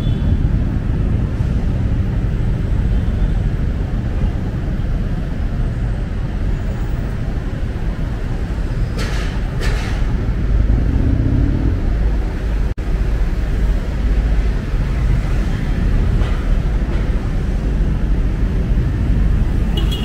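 Heavy city road traffic: a steady rumble of cars and motorbikes passing on a multi-lane avenue, with a couple of short sharper noises about halfway through.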